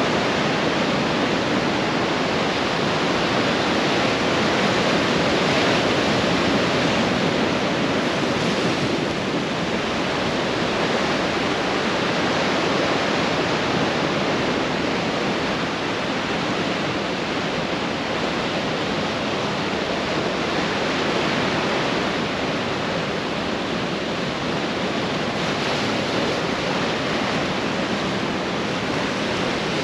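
Ocean surf breaking and washing up a sandy beach: a steady rush of noise that swells slightly a few times.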